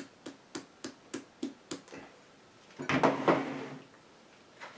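A glass mason jar of pudding being handled: a run of light taps, about three a second, for the first couple of seconds, then a longer scrape and knock around three seconds in as the jar is set down on a wooden cutting board.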